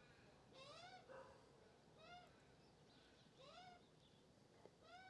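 Young Australian magpie calling, four short squawks, each rising then falling in pitch, about every second and a half. The repeated begging call of a juvenile magpie after food.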